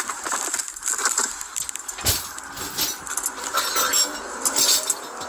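Clatter and jingling of a police officer's duty gear rubbing against a body-worn camera as he settles into the driver's seat of a patrol car, with a heavy thump about two seconds in.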